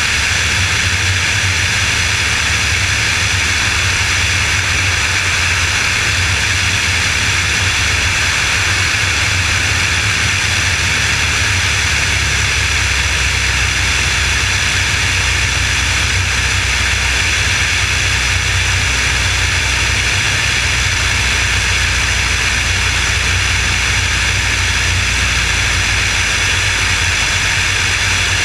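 Piper Warrior's four-cylinder Lycoming engine and propeller running steadily on final approach, with a low engine hum under a loud rush of air. No change or break in the sound.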